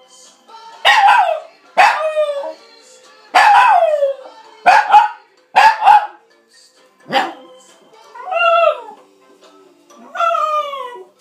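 Havanese dog howling along to music in a string of short calls, about eight, each falling in pitch.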